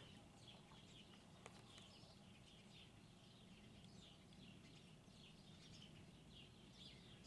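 Near silence with faint birds chirping in the background: many short, quick chirps.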